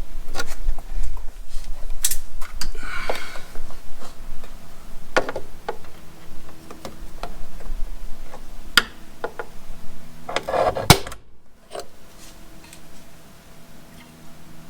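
Hand tools and parts being handled: scattered clicks and knocks, with a brief scrape about three seconds in and a louder one about ten and a half seconds in.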